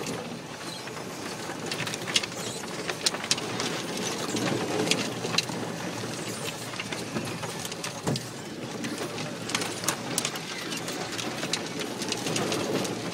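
A 4x4 driving slowly along a rough, unsurfaced green lane: a steady low engine and tyre rumble with frequent sharp knocks and rattles from the body and suspension over the uneven ground.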